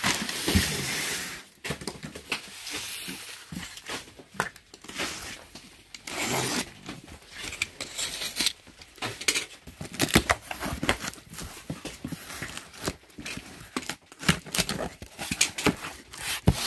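Plastic wrapping crinkling for the first second or so, then a box cutter slitting the packing tape on a cardboard box and the flaps being pulled open: a run of sharp scrapes, rips and clicks.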